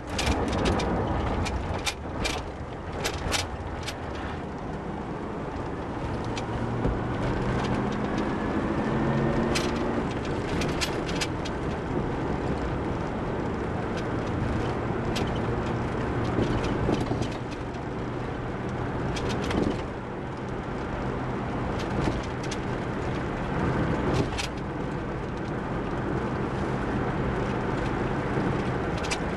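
Car engine and tyre noise heard from inside the cabin while driving, the engine note rising as the car picks up speed several seconds in, with scattered clicks and knocks.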